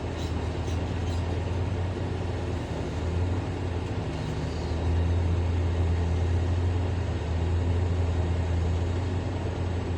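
Large diesel engine of a Hyundai 1250-9 excavator running steadily with a deep drone, growing louder about halfway through.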